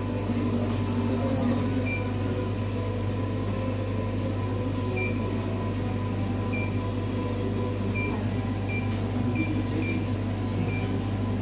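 Cornley K-Lite 3 electrolyte analyzer's keypad beeping at key presses: eight short, high beeps at uneven intervals as its menus are stepped through, over a steady low hum.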